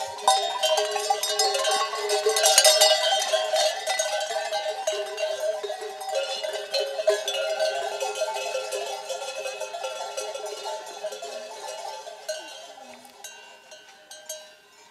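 Many bells worn by a flock of ewes jangling together as the flock walks past, a dense clatter that dies away over the last few seconds.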